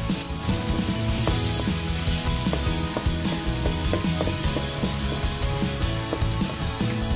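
Minced garlic sizzling in hot oil in a metal wok, stirred with a wooden spatula, as it is sautéed until lightly browned.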